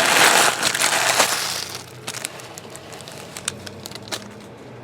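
Card pack wrapper crinkling and cards being handled, loud for about the first two seconds, then a few light clicks and taps.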